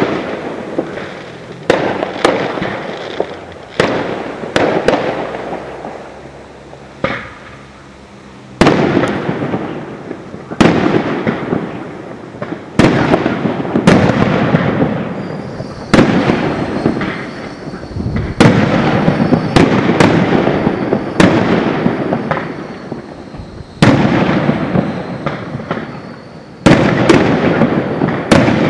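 Aerial firework shells bursting one after another, each sharp bang followed by a fading crackle, a new burst every one to three seconds.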